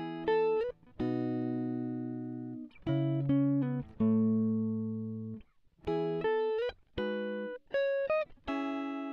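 Background music: a solo plucked guitar playing a slow line of single notes and short phrases, each ringing out and fading, with a few notes bent upward in pitch.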